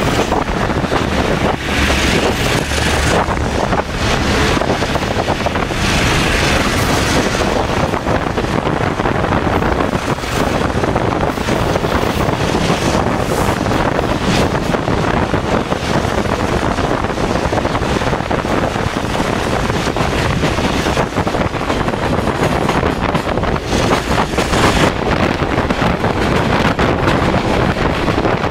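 Wind rushing over the microphone at an open window of a moving Taiwan Railway ordinary train of 40TPK32200 blue coaches, mixed with the steady running noise of the train on the rails.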